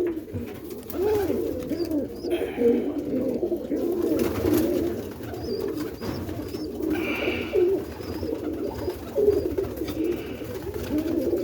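A loft full of domestic roller pigeons cooing, many birds at once, their low calls overlapping continuously.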